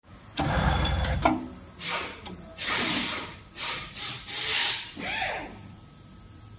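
Hands handling cloth and buttons at a ZY1377D button sewing machine: a string of short rubbing and rustling bursts with a few clicks as the fabric is worked into the button clamp. The loudest burst comes in the first second.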